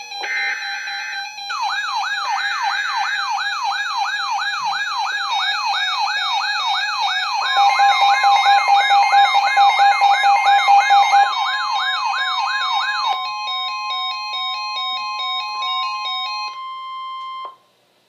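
Several NOAA weather alert radios alarming together for a flood warning: a short buzzy data burst at the start, then an electronic siren wailing up and down about two and a half times a second over steady alert tones. About halfway through a louder steady warning tone joins in, stepped beeping takes over near the end, and everything cuts off suddenly just before the end.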